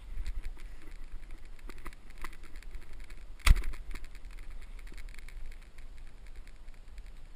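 Wind rumbling on the camera microphone, with light rustles and taps of handled gear, and a single sharp knock about three and a half seconds in.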